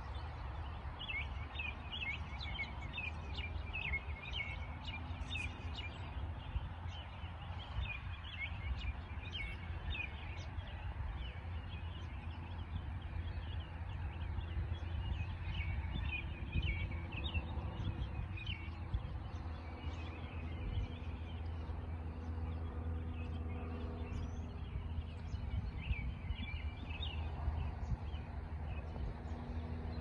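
Small songbirds chirping and twittering in quick, repeated short notes throughout, over a steady low rumble.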